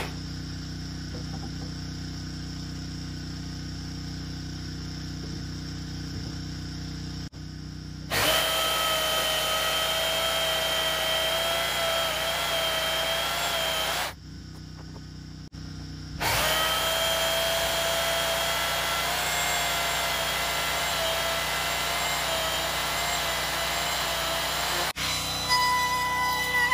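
Handheld electric wood router running at a steady speed with a constant whine, cutting into a timber beam in two long passes of about six and nine seconds with a short stop between.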